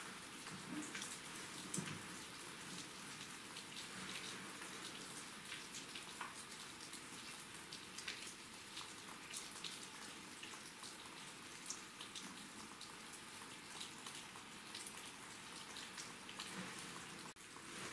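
Steady rain, with individual drops landing at irregular moments throughout.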